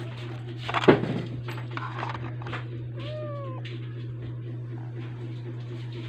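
A sharp clatter about a second in, as of small kit pieces being handled. A short cry that rises then falls follows about three seconds in, over a steady low hum.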